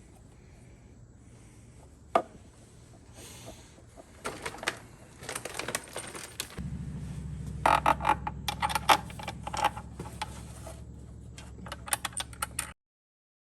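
Small metal transmission parts clinking and clattering as they are handled, a scatter of sharp clicks that grows busier about halfway through, with a low steady hum underneath, then a sudden cut to silence near the end.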